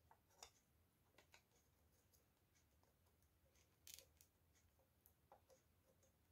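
Near silence with a few faint clicks and a short hiss a little under four seconds in: small metal contacts of a soldering iron tip and a metal rod against an old oil can during soldering.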